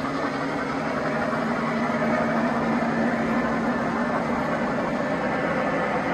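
O-gauge three-rail model train running on the layout out of sight, a steady rumbling hum with engine-like drone tones.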